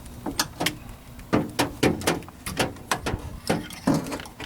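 Irregular clicks, knocks and rattles of hard plastic and metal parts being worked loose inside a Toyota Camry's rear door during door handle removal, about a dozen sharp taps in a few seconds.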